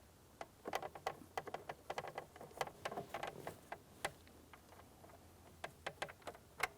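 Faint, irregular clicks and taps of a Phillips screwdriver and small mounting screws being started into a plastic glove box panel, busiest in the first four seconds with a few more near the end.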